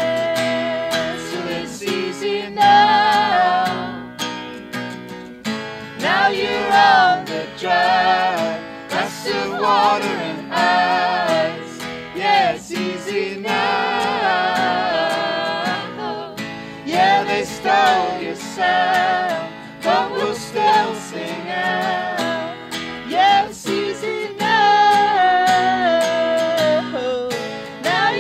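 Acoustic guitar strummed while several voices sing together in harmony.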